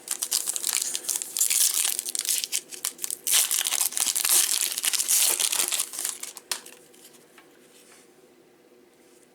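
A pack of baseball cards being torn open, its wrapper crinkling and crackling, stopping about two-thirds of the way in.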